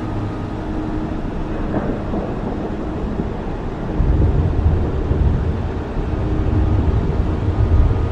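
Steady rain falling, with a low rumble that swells in about halfway through.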